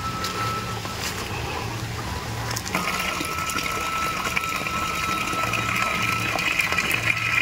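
Water rushing steadily, growing louder about three seconds in, with a thin steady high tone alongside.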